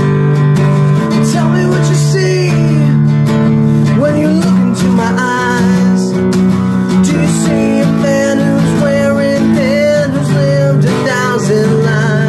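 Acoustic guitar strummed in chords that change every second or two, with a man's singing voice coming in over it about four seconds in.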